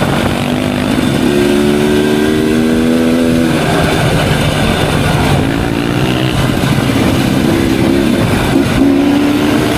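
Off-road motorcycle engine running under load on a dirt trail, its note rising and dropping in several surges as the rider works the throttle.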